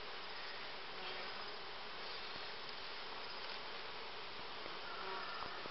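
Honeybees humming steadily around an opened beehive, with a brief higher-pitched tone near the end.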